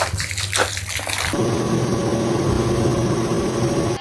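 Rushing water with a few splashes. About a second and a half in, a steady mechanical hum joins it, and both stop abruptly at a cut.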